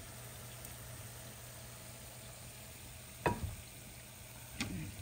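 Hot oil sizzling steadily around Johnny cakes (fried dumplings) in a frying pan, with two short clicks of metal tongs, one about three seconds in and one near the end.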